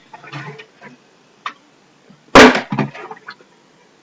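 A partly water-filled plastic bottle thudding down hard once, about halfway through, after being flipped: a missed bottle-flip landing. Fainter knocks and handling sounds come before it.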